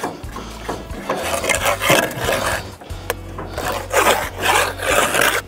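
Rough scraping of blocklaying: a mason's trowel and a concrete block grating against wet mortar on the block wall, in two bouts, with background music underneath.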